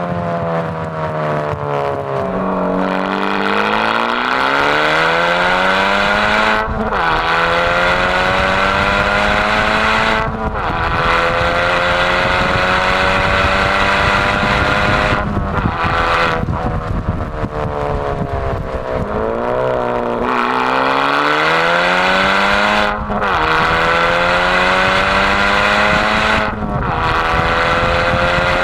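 Honda Civic FK2 Type R's 2.0-litre turbocharged four-cylinder through a Supersprint valved exhaust, the car accelerating hard through the gears. The engine note climbs steadily and breaks off briefly at each of several upshifts; it sinks twice, about two seconds in and about two-thirds of the way through, before climbing again.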